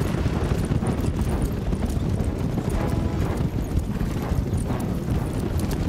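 Hoofbeats of a group of horses galloping on a dirt track, a dense, rapid, continuous drumming.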